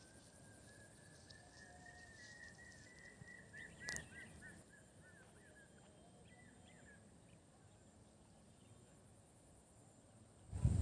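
Quiet outdoor background with a faint, high, thin animal call: a held note that rises slowly, then breaks into a run of short repeated chirps about four seconds in. A single sharp click falls in the middle.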